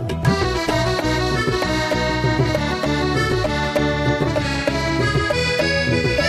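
Instrumental interlude of a Tamil film song: several melody instruments play over a steady rhythm, with no singing.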